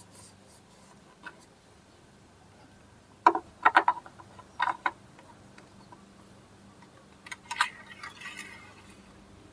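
Several sharp knocks and clicks from objects being handled and set down, in two clusters about three and a half and seven and a half seconds in, followed by a brief scraping rustle.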